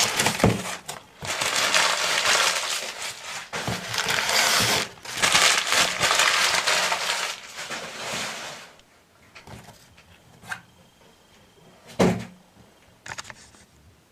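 Packaging rustling and crinkling as a parcel of spiderling tubs is handled, dense and full of small crackles for about eight seconds. After that it goes quieter, with a few separate clicks and knocks.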